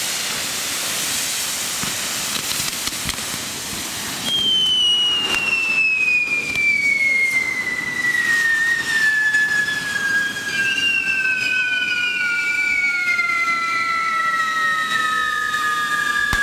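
Fireworks on a Catalan fire-dragon: a shower of sparks hissing, with a few sharp cracks. From about four seconds in, a whistling firework starts a loud, long whistle that slides slowly down in pitch as it burns, and more falling whistles join about two-thirds of the way through.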